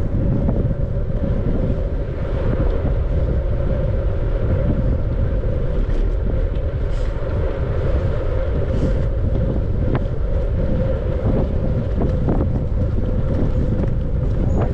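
Wind buffeting the microphone of a camera on a moving bicycle: a loud, steady, fluttering rumble with a faint steady hum underneath.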